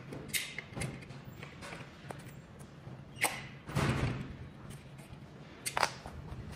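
Hand-tool work on a treadmill's drive motor mount: an Allen key turning a mounting bolt in the steel frame while the motor is held and shifted by hand. There are a few sharp metal clicks, a duller thud about four seconds in, and a sharp clink near the end as the key is set down.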